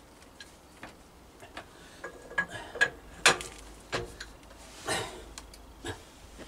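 Scattered, irregularly spaced light clicks and a few sharper knocks as the drive pulley of a homemade wood lathe is turned and handled by hand; no motor is running.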